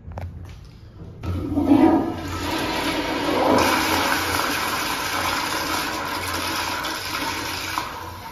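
Flushometer-valve toilet, a Kohler Highcliff Ultra bowl, flushing. After a few faint clicks, a loud rush of water starts about a second in, holds steady, then drops off sharply near the end.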